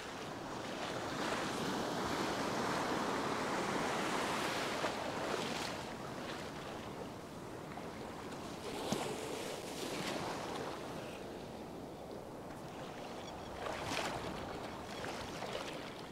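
Surf breaking and washing in over the shallows. It swells loudest over the first few seconds, and another wave surges near the end.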